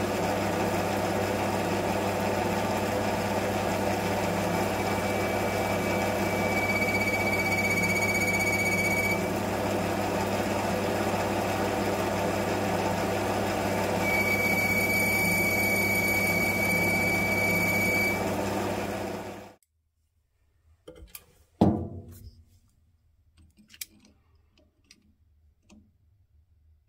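Small metal lathe running while facing a stainless steel sleeve to length. Twice a high steady whine sounds over the motor hum for a few seconds as the tool cuts. The running cuts off suddenly about 19 seconds in, followed by a few faint clicks and one sharp knock.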